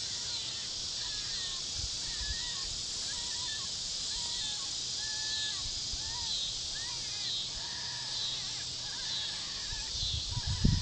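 Open-field summer ambience: a steady high-pitched hiss with many short, wavering crow-like calls over it, and a few low bumps near the end.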